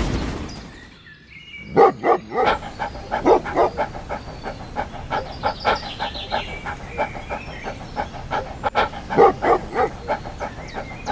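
Dog barking in a quick run of short barks, about two or three a second, loudest near the start and again about nine seconds in.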